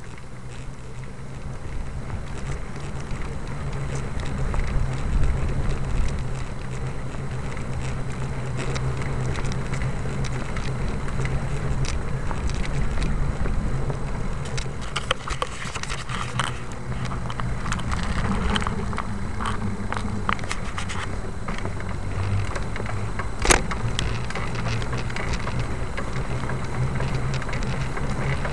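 Steady low rumble with scattered crackles and rattles from a camera being carried along a paved trail, with one sharp click about four-fifths of the way through.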